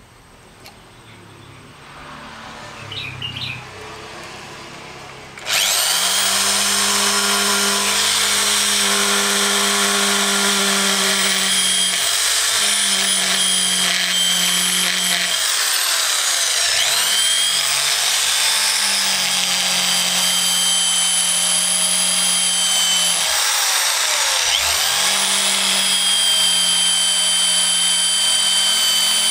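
Electric hand drill boring into a broken motorcycle brake-disc bolt, its steel bit cutting into the snapped bolt stub in the disc. The drill starts suddenly about five seconds in and runs with a steady whine, slowing and picking up speed again a few times.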